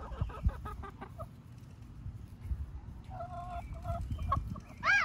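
Hens clucking in short calls, with one loud squawk near the end.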